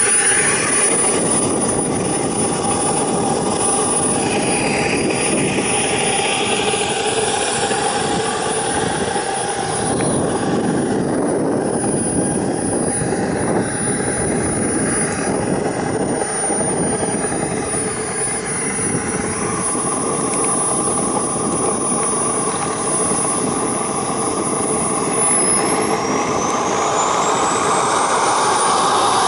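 Small model jet turbine in an RC Viperjet running with a high whine over a steady exhaust rush as the jet taxis. Near the end the whine rises in pitch as the turbine spools up.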